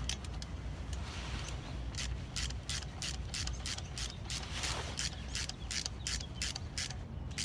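Ratchet driving a T25 Torx bit, clicking in quick even strokes while snugging down the small bolts of a manual locking hub by hand.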